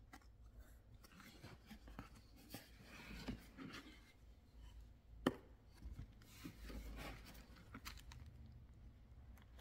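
Faint handling of a rigid cardboard gift box: scattered rubbing, scraping and light taps as the lid is lifted open, with one sharp tap about five seconds in.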